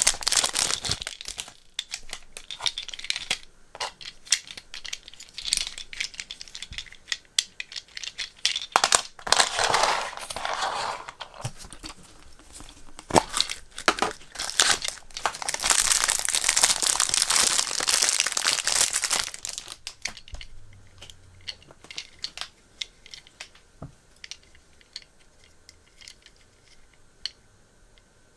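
Crinkling and tearing of a thin clear plastic wrapper being pulled off a toy minicar, with rustling of a paper insert and handling of a plastic capsule; the crinkling comes in long spells and gives way to quieter scattered clicks and taps in the last third.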